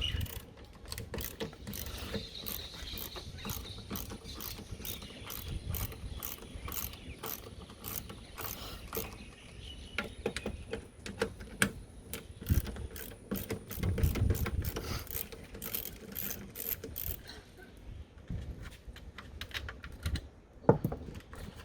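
Socket ratchet wrench clicking in quick runs as it backs off the 10 mm nuts holding a tail light, with a few low knocks of handling in between; the clicking stops a few seconds before the end.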